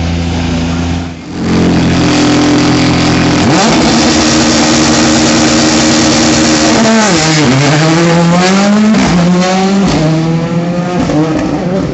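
World Rally Car's turbocharged four-cylinder engine held at high revs, then pulling away with a rise in pitch about three and a half seconds in. From about seven seconds the pitch falls and climbs again through gear changes as the car accelerates off, the sound growing rougher with crackles near the end.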